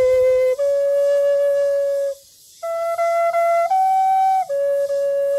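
Bamboo flute played slowly: long held notes stepping upward, a short pause for breath about two seconds in, then a rise to a higher note and a fall back to a middle note near the end.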